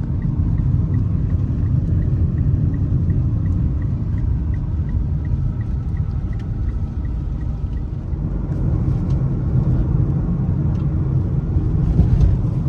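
Steady low rumble of a vehicle in motion. A faint, rapid, even ticking runs through the first half.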